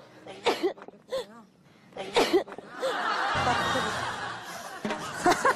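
A few short, sharp vocal bursts, the loudest about two seconds in, then several people laughing together for about two seconds.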